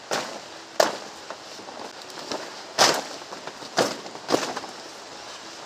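A dao (long machete blade) slashing through leafy plant stalks, about five sharp cuts with rustling leaves between them.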